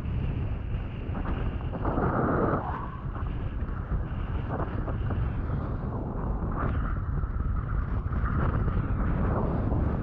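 Wind buffeting the action camera's microphone over the rush and slap of a windsurf board planing across choppy water, with short irregular knocks of the hull on the chop. A louder rush of water about two seconds in.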